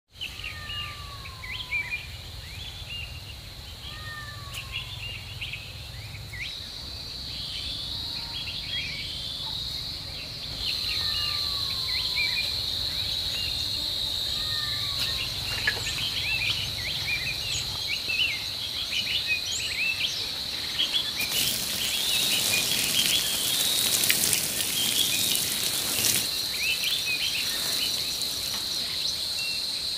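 Rural outdoor ambience: insects keep up a steady high-pitched drone while birds chirp, with one bird repeating a falling whistle about every two seconds in the first ten seconds. A rushing hiss joins for about five seconds in the last third.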